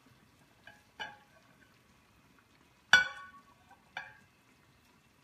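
Metal kitchen tongs clinking and knocking as cooked spaghetti is lifted out of a strainer: four short clicks, the one about three seconds in much the loudest, with a brief metallic ring.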